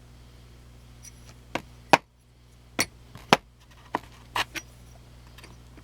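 Titanium knife scales clicking and clinking as they are handled: about seven sharp knocks spread over three seconds, the loudest about two seconds in.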